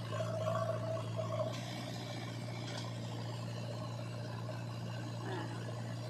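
JCB 3DX backhoe loader's diesel engine running steadily under hydraulic load as the backhoe arm dumps soil and swings back, with a higher whine rising and falling in the first second or so and a hiss coming in about a second and a half in.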